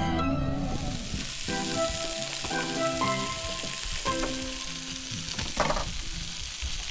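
Food sizzling as it fries in a hot pan.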